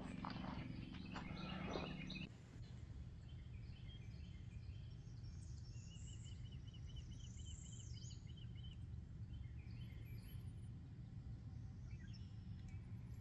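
Faint lakeside ambience: a steady low rumble with scattered bird calls, including a quick run of about a dozen chirps around the middle.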